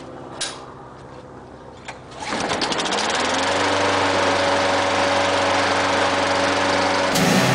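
Craftsman push lawn mower's engine starting about two seconds in, catching with a rapid sputter and rising in pitch for about a second before settling into a steady run.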